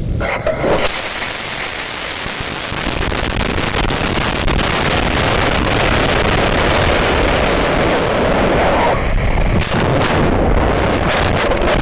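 Aerotech G64 White Lightning model rocket motor igniting with a sudden burst about half a second in. A loud, steady rushing hiss of the motor burn and the airflow over the onboard camera follows, with several sharp crackles near the end.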